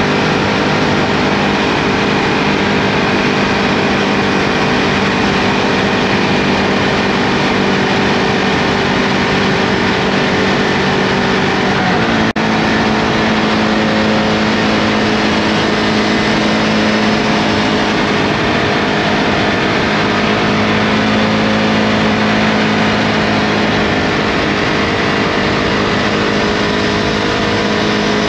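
Ducati Multistrada V2S's 937 cc L-twin engine running steadily under way. About twelve seconds in there is a momentary gap in the sound as a gear is changed, after which the engine note steps up a little and holds steady.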